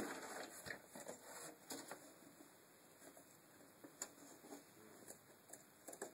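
Faint handling sounds of window regulator parts on a metal car-door carrier panel: rustling for the first two seconds, then a few scattered light clicks and taps.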